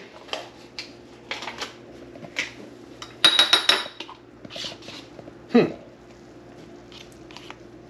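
Metal utensil clinking and tapping against a dish while sour cream is spooned onto a taco: scattered light clicks, then a quick run of four ringing taps about three seconds in. A short sound falling in pitch follows a couple of seconds later.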